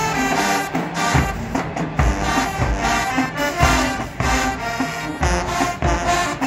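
High school marching band playing a brass-led tune with heavy drum hits.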